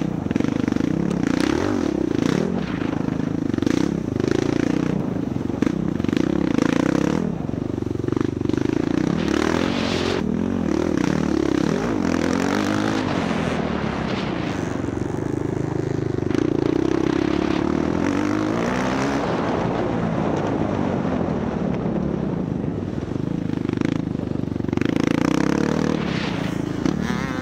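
Dirt bike engine under way on a cross-country trail, its pitch rising and falling over and over as the throttle is opened and closed. A few short knocks and rattles come from the bike over the rough ground.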